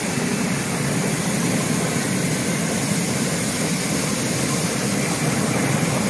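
Industrial bubble washing machine for vegetables running: its air blower drives bubbles through the stainless-steel tank, making a steady roar of churning, bubbling water.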